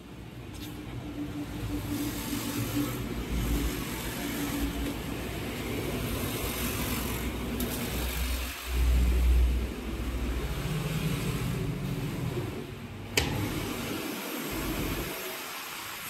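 Steady background noise of road traffic with a low rumble, swelling into a louder low rumble for about a second around nine seconds in. One sharp click comes near the end.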